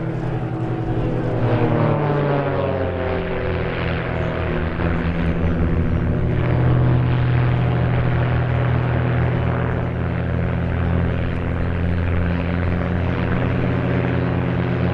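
Piston engines and propellers of small aerobatic biplanes (a Pitts S-1 Special, an Ultimate 10-300 and a Christen Eagle II) droning in flight. The engine pitch slides down in the first few seconds, then settles into a steady drone.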